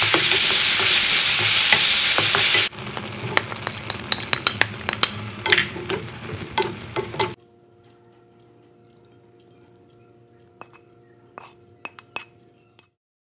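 Chicken pieces sizzling loudly in a hot wok as they are stirred. It cuts abruptly about two and a half seconds in to quieter frying, with the spatula clicking and scraping against the wok as broccoli is tossed in sauce. After about seven seconds there is only a faint hum with a few light clicks.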